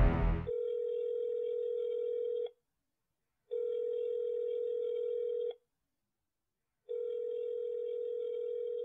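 Telephone ringback tone, the ringing a caller hears while the call goes through: three steady tones of about two seconds each, a second or so apart.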